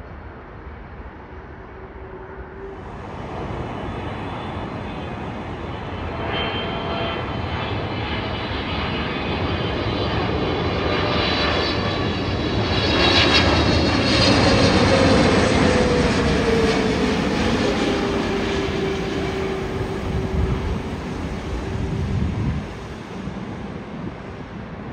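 Boeing 777 jet airliner on final approach passing low overhead: the engine noise swells to a peak about halfway through, then a whine drops in pitch as the aircraft passes and the sound slowly fades.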